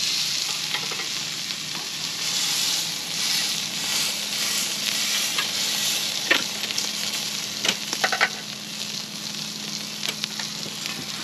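Brisket sizzling steadily as it sears on a hot barbecue grate, sealing the outside before a slow cook. A few sharp clicks of metal tongs against the grate come about six and eight seconds in.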